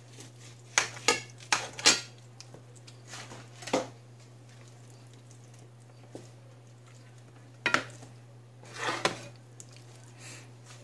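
Dinner plate clinking and clattering as cooked pork spare ribs are pulled apart by hand on it: a quick run of sharp clinks about a second in, then single knocks later, over a steady low hum.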